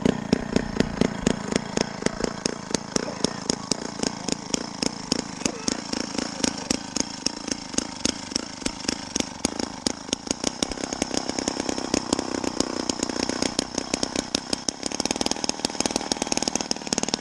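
Two-stroke gas-powered ice auger running, its engine note pulsing several times a second and growing steadier near the end.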